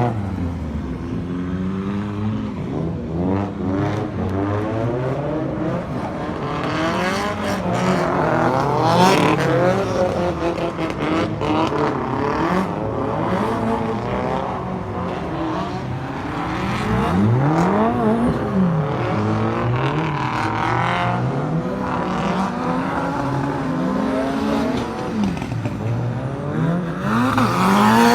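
Drift cars' engines revving hard and dropping off again, several at once, their pitches sweeping up and down as they drift past.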